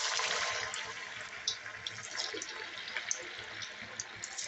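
Semolina-potato balls deep-frying in hot oil in a steel pan: a dense sizzle that is loudest as the balls first go in, with sharp pops scattered through it.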